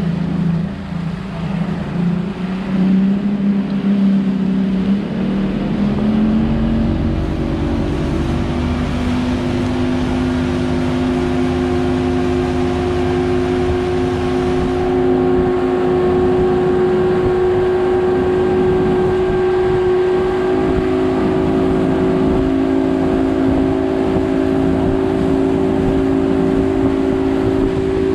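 A 20-foot center-console boat's engine being opened up: its pitch climbs over the first several seconds, then holds steady at running speed over a steady rushing noise.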